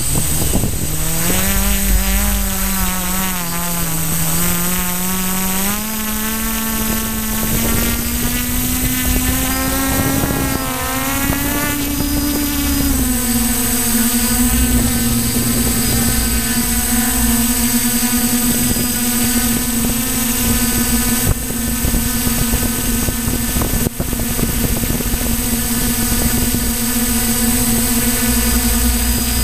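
DJI Flamewheel multirotor's brushless motors and propellers whining, heard from the camera on board. The pitch wavers and climbs with the throttle over the first dozen seconds, then holds steady.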